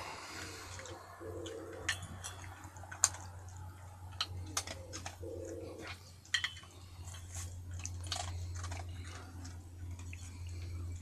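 Jack Russell terrier chewing and crunching its food from a stainless steel bowl, with irregular sharp clicks of teeth and food against the metal, over a steady low hum.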